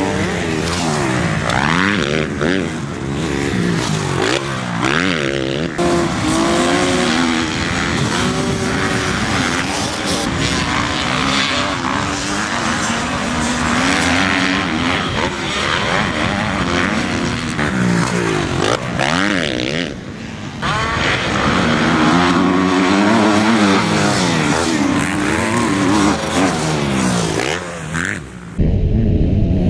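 Motocross dirt-bike engines racing, the pitch repeatedly rising and falling as the riders open and close the throttle and shift gears, with a short dip about twenty seconds in and an abrupt cut near the end.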